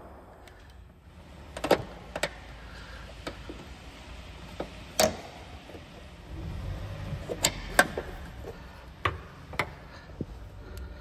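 Sharp clicks and knocks of hand tools and parts being handled while power-frunk actuators are fitted, about a dozen spread through, with a low rumble for a couple of seconds in the middle.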